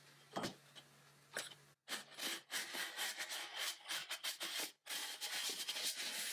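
Faint rubbing and scraping with many small clicks, in short edited stretches, over a low steady hum during the first couple of seconds.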